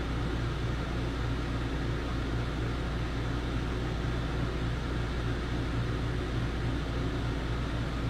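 12 V air conditioner running flat out, fan at top speed and compressor working at the coldest setting while drawing over 500 W: a steady low hum under a steady rush of air.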